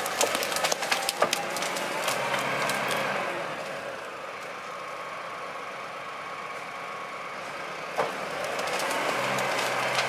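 Valtra A124 tractor engine running steadily while the loaded forestry trailer rolls over slash. Branches crack and snap under the tyres, with many cracks in the first few seconds and one loud snap about eight seconds in.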